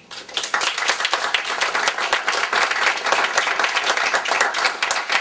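Small audience applauding, many hands clapping at once; it starts a moment in and keeps going.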